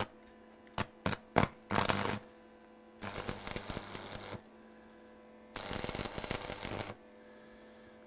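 Steady electrical hum, with a few sharp clicks in the first second and a half. Three short hissing, crackling bursts follow: one brief, then two of about a second and a half each.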